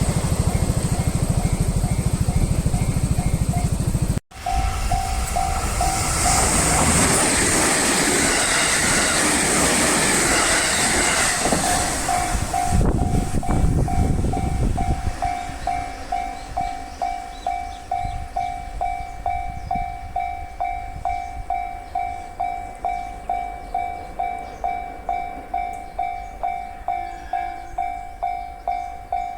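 A train passes a railway level crossing with a loud rumble, then breaks off abruptly about four seconds in. The level-crossing alarm then rings at about two strikes a second as another train runs through, its noise fading out after about fifteen seconds and leaving the bell ringing alone.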